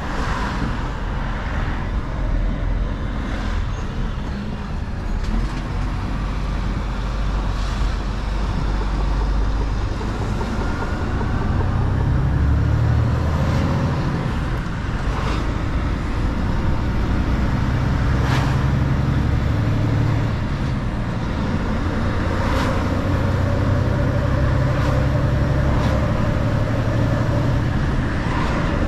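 Mercedes-Benz Actros L truck on the move: a steady low engine and road rumble, with short sharp noises every few seconds.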